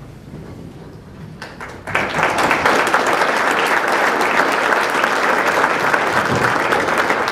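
Audience applauding. A few scattered claps start about a second and a half in, and steady, dense applause follows from about two seconds in.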